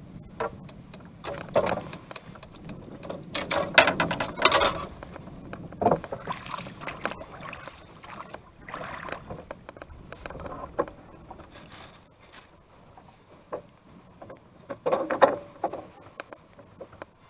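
A wooden rowboat being rowed: oars splashing in the water and knocking in their oarlocks in irregular strokes, the loudest bursts about a third of the way in and again near the end.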